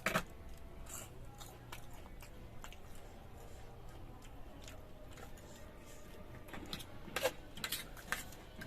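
A person eating: chewing and biting, with scattered short crisp clicks and crunches, a loud one at the start and several close together near the end.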